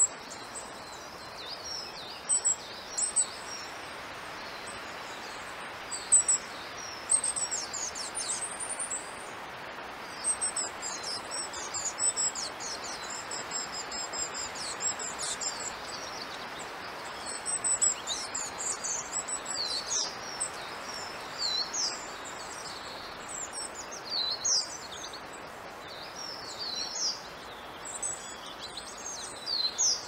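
High, thin calls of long-tailed tits: many short notes in quick runs, some sliding downward, over a steady background hiss.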